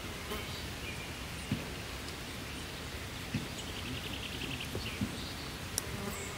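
Steady outdoor background noise with faint bird chirps, including a short quick trill a little past the middle, and a few soft taps.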